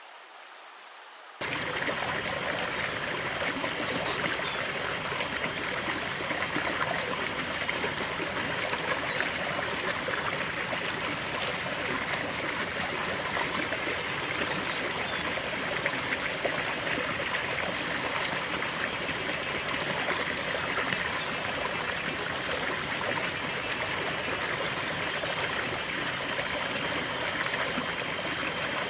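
River water rushing and trickling in a steady, even wash. It cuts in abruptly about a second and a half in.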